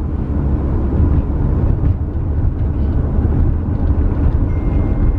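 Steady low road and engine rumble heard inside a car's cabin while driving.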